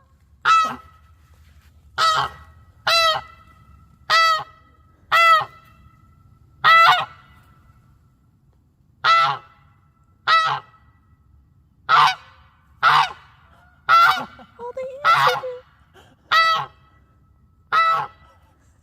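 Geese honking: a series of about a dozen loud single honks, each short and spaced a second or two apart, with one longer, lower call about fifteen seconds in.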